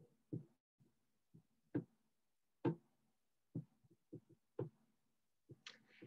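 Irregular soft thumps and clicks coming through a video-call microphone, about a dozen in six seconds, with dead silence between them.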